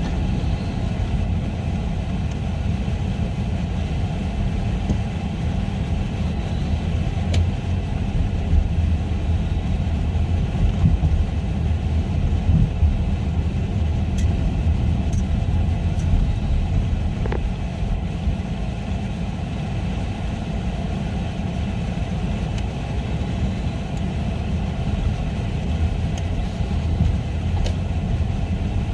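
Steady low rumble of a car or truck running, with a few faint clicks.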